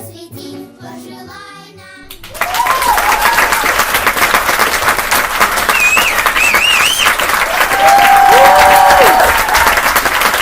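A children's song with singing cuts off abruptly about two seconds in. Loud applause from an audience follows, with a few high gliding cheers over it.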